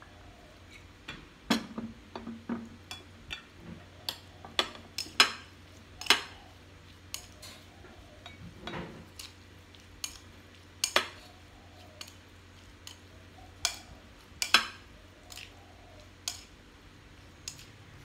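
Metal spoon clinking and scraping against a ceramic bowl while stirring chopped raw meat with seasonings, in irregular sharp clinks, some louder than others.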